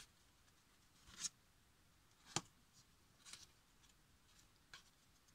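Faint handling of white cardstock: a few soft paper rustles and one sharper tick about two and a half seconds in, as glued flaps of a paper box lid are pressed together edge to edge.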